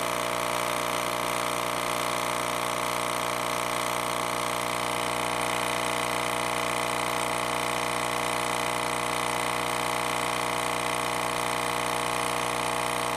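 RE Audio SX 12-inch subwoofer connected directly to a 120-volt wall socket, buzzing loudly and steadily at one unchanging pitch with many harsh overtones. The cone is driven by the raw mains current, and the voice coil is running so hot that it is burning.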